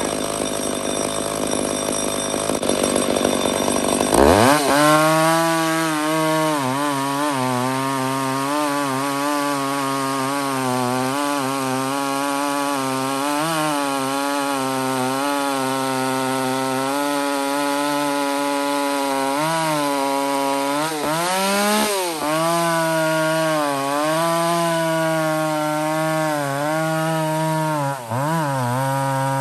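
McCulloch 850 two-stroke chainsaw. About four seconds in it revs sharply up to full throttle, then runs hard and steady under load while cutting into a big log, its pitch wavering as the chain meets resistance. It dips briefly twice near the end.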